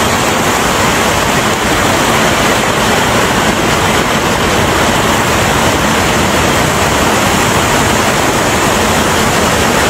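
Fast-flowing floodwater rushing, loud and steady.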